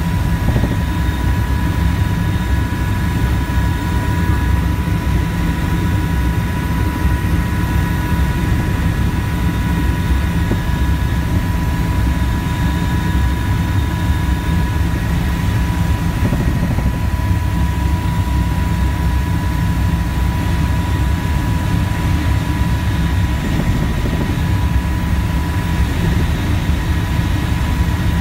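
A helicopter in flight, heard from on board: a steady, heavy low rumble of rotor and engine with a constant high-pitched whine over it.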